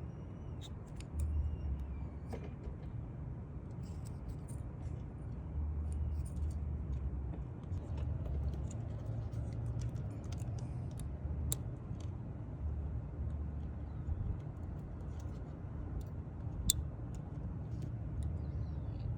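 Scattered light clicks and ticks from a small plastic wiring connector and its metal terminals being handled and fitted, over a steady low rumble.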